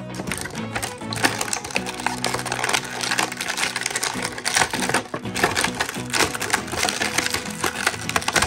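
Clear plastic packaging crinkling and crackling in dense, irregular bursts as toy pieces are handled and pulled out of plastic bags and a blister tray, over steady background music.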